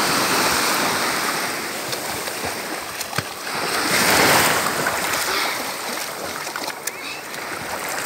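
Swimmers splashing as they thrash through sea water, swelling near the start and again about four seconds in, over the wash of small waves.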